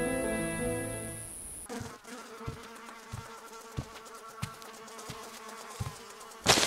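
Orchestral music fades out in the first couple of seconds, giving way to flies buzzing steadily, with soft low thumps at a slow, even beat. Near the end there is a sudden loud burst.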